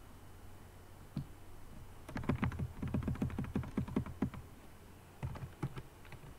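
Computer keyboard keys being pressed: a quick run of key clicks, about eight a second, as the Backspace key is tapped over and over, then a few single keystrokes near the end as typing begins.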